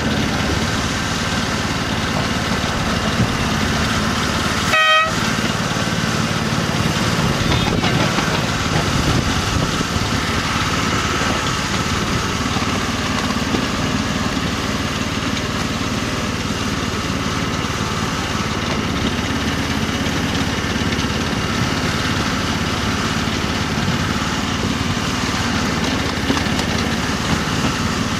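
The small engine of a 7¼-inch gauge BR Class 03 outline model locomotive running steadily while the loco is under way. About five seconds in there is a single short horn toot.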